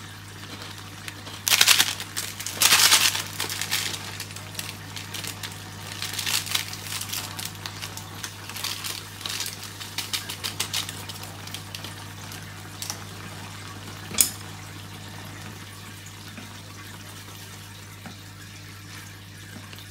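Plastic instant-noodle seasoning packet torn open and crinkled, then rustled as the powder is shaken out over simmering noodles, over a steady low hum. There is one sharp knock about two thirds of the way through.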